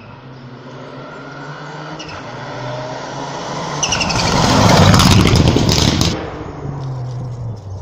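Rally car approaching at speed on a tarmac stage, its engine revving and growing steadily louder as it nears. It passes about five seconds in with a rattle of sharp cracks, then the sound drops away suddenly and the engine fades into the distance.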